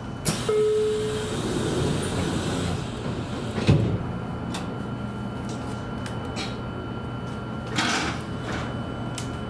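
JR Kyushu 813 series electric train's doors closing: a short steady tone over a hiss of air from the door gear, then a single thump about three and a half seconds in as the doors shut. Another short hiss of air follows near the end.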